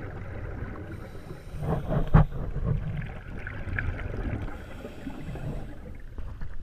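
Underwater sound, muffled through a camera housing: scuba exhaust bubbles gurgling in a burst about two seconds in, over a low steady rumble.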